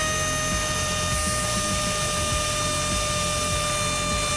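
Electric tire inflator running steadily, a loud hiss with a steady whine, pumping air into an ATV tire that has been flat for years.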